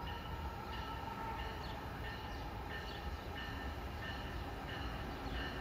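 Steady low rumble of a train at a distance, with faint short high chirps repeating every half second or so over it.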